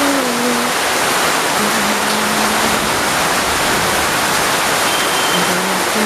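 Heavy monsoon rain falling steadily, a dense even hiss, with faint wavering pitched tones underneath at times.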